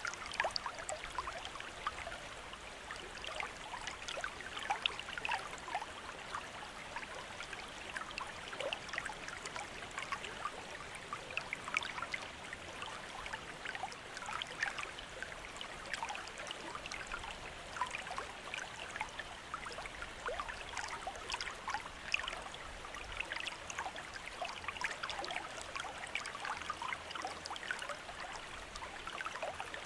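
Water trickling from a bamboo fountain spout into a basin: a steady, continuous splashing and burbling made of many small drips and plops.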